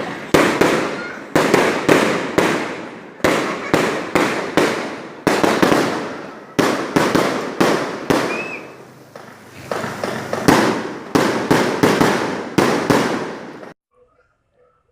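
Fireworks going off in rapid, irregular volleys of sharp bangs, each fading out behind it, with a short whistle about eight seconds in. The bangs cut off suddenly near the end.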